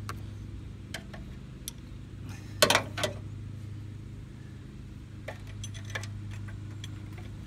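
Scattered metallic clicks and clinks of a hand tool and clamp bolts against the exhaust manifold area, with a short, louder clatter about two and a half seconds in.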